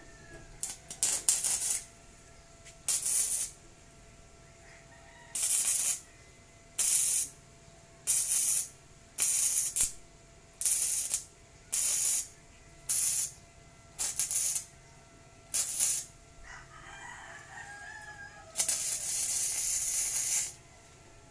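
Gasless flux-core MIG welder arc crackling in short stitch welds on thin tubular steel, about a dozen bursts of under a second each, roughly one every second and a half, then one longer bead of about two seconds near the end. The short bursts keep the thin tube from burning through.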